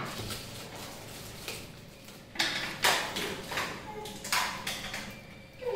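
Plastic packaging wrapped around a new mixer-grinder, rustling as it is handled and cut open with scissors. It crinkles in several short, sharp bursts about halfway through and after.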